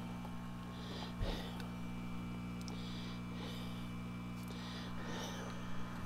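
Hot-air solder rework station's blower fan running with a steady low hum, just switched on.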